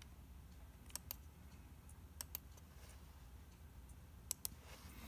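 Computer mouse clicking: three pairs of quick, sharp clicks, about a second in, past the two-second mark and near the end, over faint room tone.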